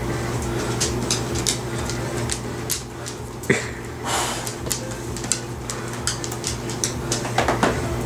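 A dog's claws clicking irregularly on a hardwood floor as it moves about, over a steady electrical hum. A short rush of breath comes about four seconds in.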